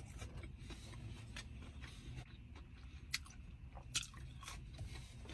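A person biting and chewing a chicken wing, with soft mouth and finger-licking smacks; the sharpest smacks come about three and four seconds in. A low steady hum runs underneath.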